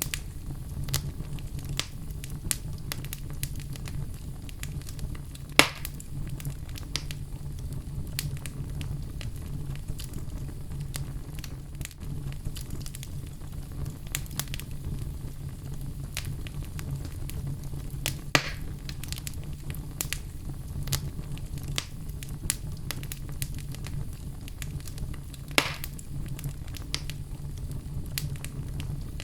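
Outdoor wood fire burning, with continual small crackles over a steady low rumble. Three louder sharp pops stand out: one at about six seconds, one at about eighteen seconds and one near the end.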